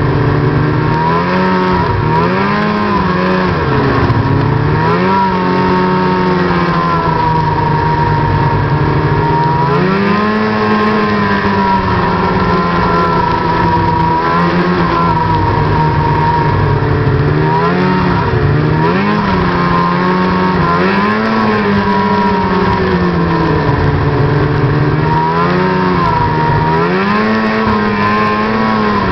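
Snowmobile engine running under throttle along a trail, its pitch rising and falling over and over as the rider speeds up and eases off.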